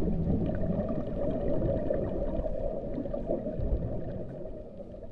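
Muffled underwater-style sound-design ambience, a dull rumble with gurgling, slowly fading away.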